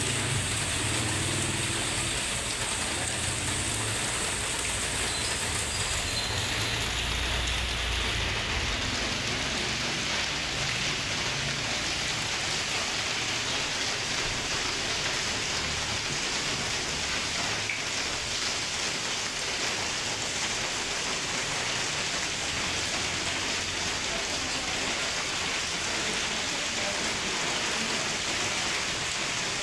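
Steady heavy rain falling on hard surfaces, an even hiss with no pause. A low rumble sits under it for the first several seconds and fades out about eight seconds in.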